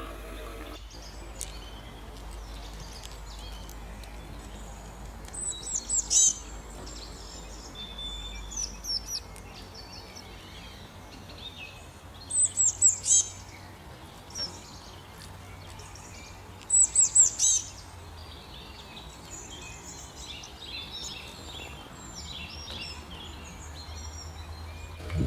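Small birds calling: three loud bursts of quick, high, falling notes, about six, twelve and seventeen seconds in, with softer twittering between them and towards the end, over a faint steady background hiss.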